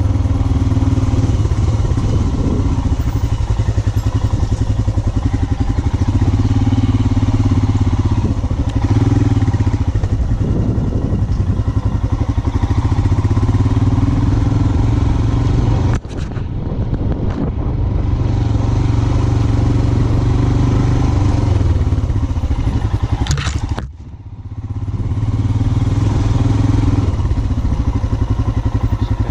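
Royal Enfield Himalayan 411's single-cylinder engine running steadily under load on a rough off-road trail. The throttle is shut off briefly about halfway through and again near the end, the engine dropping away each time before picking back up.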